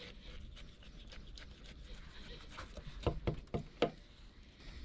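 Fillet knife cutting into a freshly caught yellowtail's throat and belly during gutting: small wet clicks and scrapes of the blade and hand in the flesh, with four louder knocks in quick succession about three seconds in.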